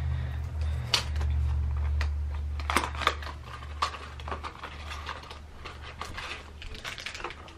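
Crinkling and clicking of small paper and foil blind-bag packaging being unwrapped by hand, with scattered sharp clicks and a low hum underneath.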